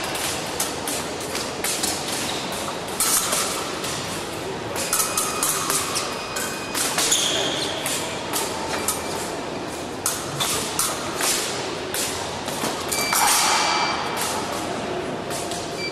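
Épée fencing: irregular sharp clicks and knocks of steel blades meeting and fencers' feet striking the piste, with a few denser flurries.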